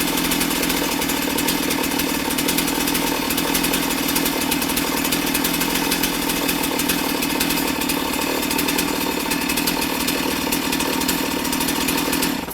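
Stihl MS 270 two-stroke chainsaw running steadily at a constant, high engine speed, stopping abruptly at the very end.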